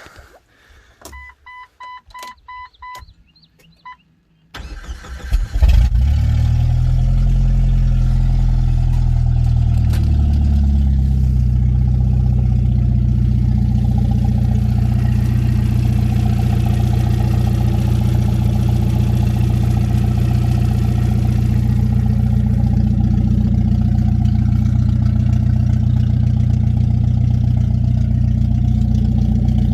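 A 1999 Jeep Wrangler TJ's 2.5-litre four-cylinder engine is started: a dashboard warning chime beeps several times, the starter cranks for about a second, and the engine catches and settles into a steady idle.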